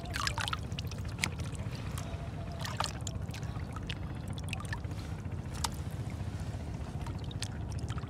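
Gloved hands splashing and sloshing in shallow tide-pool water, lifting out stranded fish, with a few sharp splashes spread through and water dripping. Under it runs a steady low rumble.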